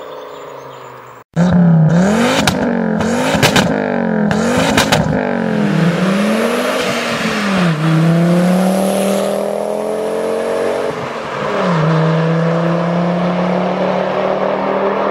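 Volvo 850 five-cylinder engine, heard faintly on the move, then after a sudden cut about a second in it revs loudly in the free-rev style. It blips quickly up and down several times, with sharp cracks among the blips, then rises more slowly and holds steady at higher revs.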